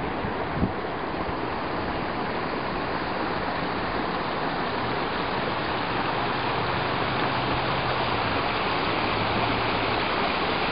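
Steady rush of flowing water, an even continuous noise with no breaks. A faint low hum joins about halfway through.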